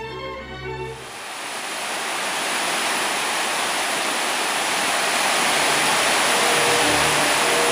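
Water of a large karst spring rushing and tumbling over mossy boulders, a steady even rush that fades in over about two seconds as instrumental string music fades out. Faint music comes back under the water near the end.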